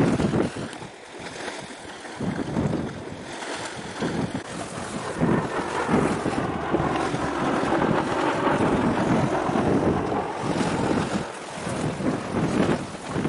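Wind buffeting the camera microphone in uneven gusts, a rumbling hiss that swells and drops.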